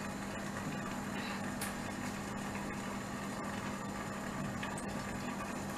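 Batter-coated paneer cubes frying in hot oil: a steady sizzling hiss with a few faint small pops, over a steady low hum.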